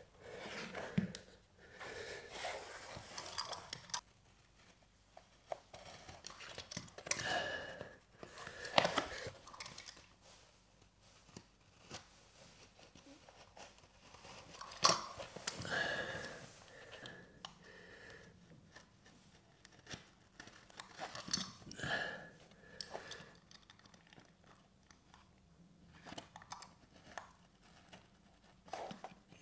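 Vinyl lino sheet being worked and trimmed with a utility knife: irregular scraping, crinkling and cutting sounds with a few sharp knocks, the loudest about nine and fifteen seconds in.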